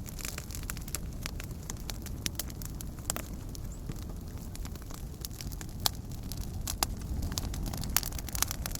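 Fireplace fire burning with a steady low rumble and scattered crackles, with a few sharper pops in the second half.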